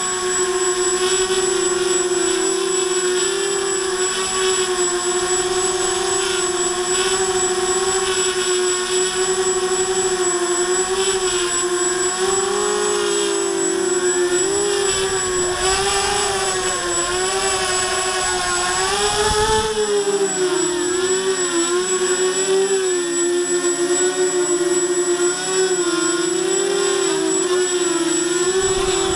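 Walkera Runner 250 racing quadcopter's four brushless motors and propellers whining steadily, the pitch wavering and bending up and down as the throttle changes. A stretch of wind rumble on the microphone comes in around the middle.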